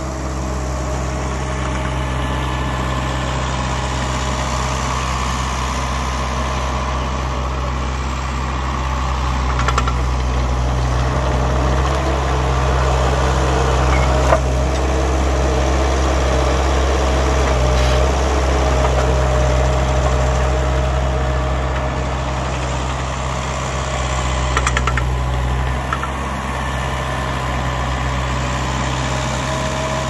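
Vermeer mini skid steer's engine running steadily as the machine works, growing louder in the middle as it comes close. A sharp knock about halfway through and a couple more near the end.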